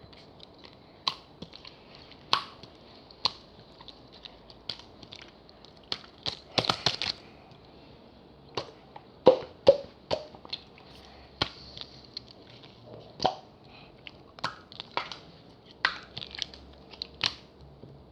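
Cheese jelly slime being squeezed and pressed by hand, giving irregular sharp pops and squelches, with a quick run of them about seven seconds in.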